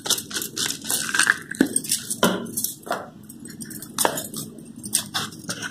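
Sharp, dry clicks and crackles as seasoning is shaken out over a plate of crisp fried peel wafers. They come quick and dense at first, then thin out to single ticks about every half second.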